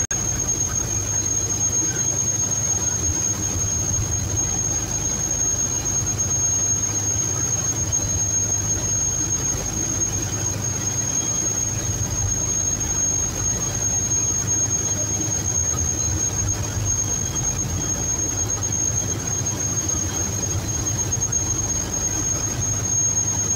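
A boat's engine running steadily with a constant low hum, and a thin high-pitched whine held over it.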